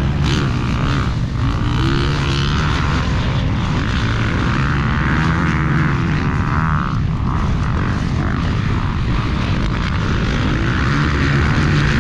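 Motocross dirt bike engines running hard at race speed, a steady loud drone with the pitch shifting as the throttle changes.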